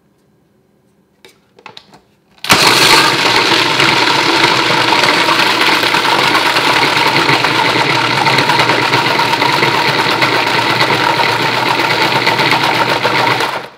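A few light clicks as the lid goes on, then a KitchenAid food chopper switches on about two and a half seconds in and runs steadily, its blade pureeing chunks of beef liver to a mush, before cutting off just before the end.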